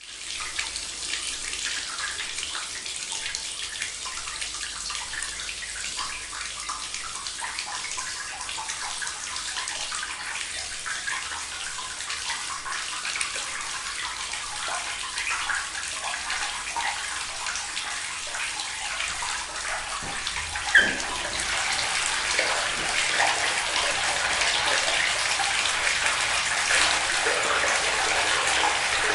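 Water running steadily, a continuous trickling and splashing like a tap or bath filling. About 21 seconds in there is one sharp splash, and the flow then becomes fuller and louder.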